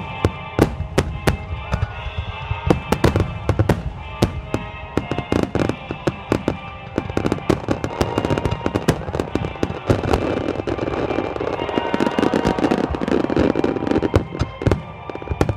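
Aerial fireworks bursting in quick, irregular succession, with a dense stretch of crackling in the second half, over music playing along with the show.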